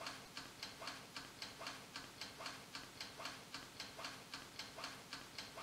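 Faint, even ticking of a toaster oven's wind-up mechanical timer, several ticks a second, as it counts down while the oven is running.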